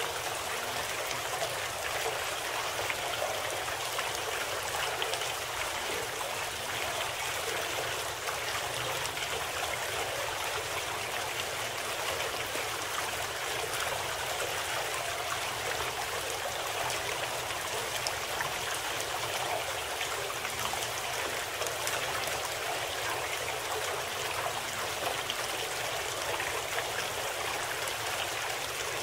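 Steady, unbroken rush of flowing water, like a running stream.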